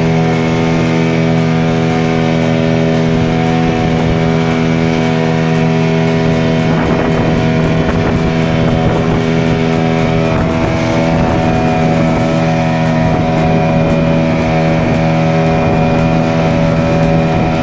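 An engine running at a constant speed, a steady loud drone that does not change pitch.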